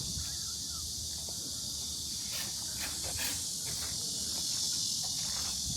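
Mobile silent diesel generator with a Yuchai YC4A140L-D25 engine running inside its soundproof canopy: a steady low hum under a constant high hiss, with a few faint taps midway.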